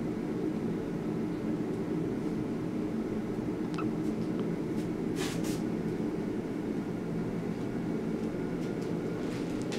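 Steady low mechanical hum, with a short hiss about five seconds in.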